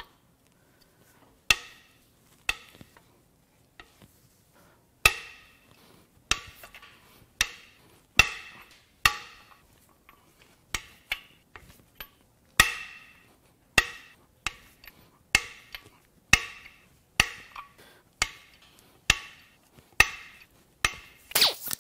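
Sharp metal-on-metal knocks with a short ring, about one a second after a couple of sparse ones, at the rusted main bearing caps of a seized Chevrolet 454 big-block as they are worked loose.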